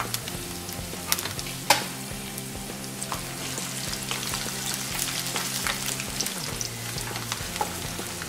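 Diced potatoes sizzling in hot oil among fried onions in a nonstick pan, stirred with a wooden spatula that taps and scrapes against the pan. A sharp knock just under two seconds in is the loudest sound.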